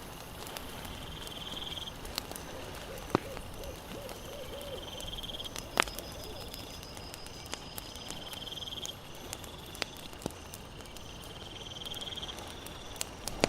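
Night campfire ambience: a steady soft crackle with a few sharp pops, while a high chirping trill, like a cricket or other night insect, repeats every few seconds. A brief low wavering call comes about four seconds in.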